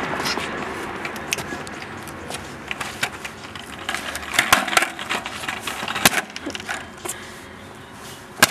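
Skateboard knocking and clacking on brick paving as it is stomped, flipped up and set down in freestyle tricks: scattered sharp knocks, a quick cluster in the middle and the loudest about six seconds in and just before the end.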